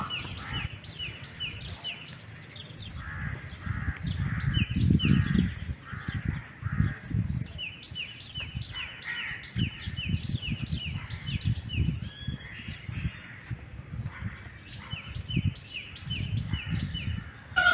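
Bird calls: runs of short, quick chirps repeated several times a second, coming in bursts with pauses between, over a low uneven rumble.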